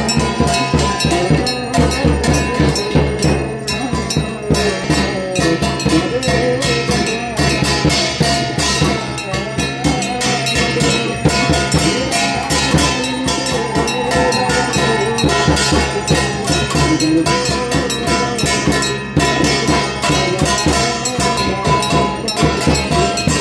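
Music of fast, steady percussion with ringing bell strikes running throughout.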